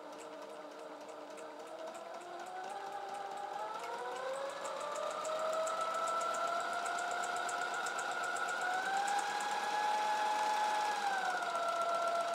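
A 12 V, 100 W Unitemotor MY6812 DC motor driving a sewing machine by belt as its speed is raised: a whine climbs in pitch over the first few seconds, holds, rises again at about eight and a half seconds and settles back lower near the end, with a fast even ticking from the running machine.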